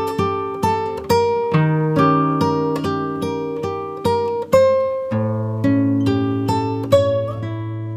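Background music of a plucked acoustic guitar playing a gentle melody, notes struck about twice a second over low bass notes, the last chord ringing out near the end.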